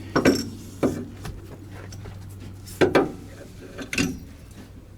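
Knocks and clunks of a replacement rear shock absorber and its mounting hardware being pushed and lifted into place: a pair right at the start, one about a second in, a quick double about three seconds in and one more about four seconds in, over a steady low hum.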